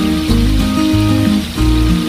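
Instrumental background music with a bass line and a melody of short held notes, with the hiss and crackle of a whole tilapia frying in oil in a wok underneath.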